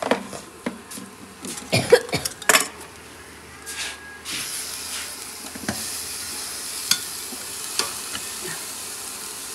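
Steel utensils clinking and knocking against pots and a spice box for the first few seconds, then from about four seconds in a steady sizzle of vegetables and spices frying in a steel pan, with a few spoon ticks.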